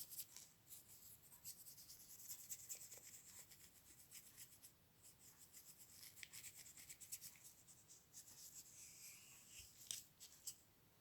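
Near silence with faint, scattered scratching, rubbing and light ticks from hands handling the camera's small plastic parts.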